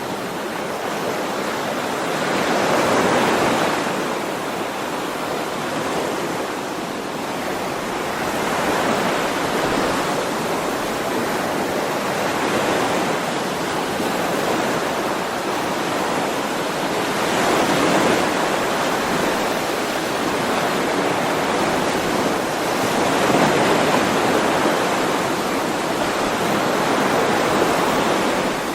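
Ocean waves washing onto a shore, a steady surf hiss that swells and eases every few seconds.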